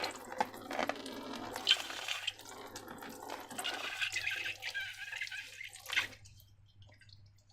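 Wet, sloshing and squelching sounds of slime mixture being worked by hand, with small clicks and drips, stopping about six seconds in.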